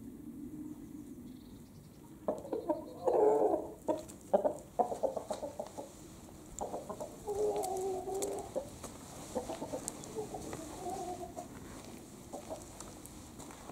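A rooster crows about two seconds in, followed by a run of short clucks and more drawn-out calls from the chickens through the middle.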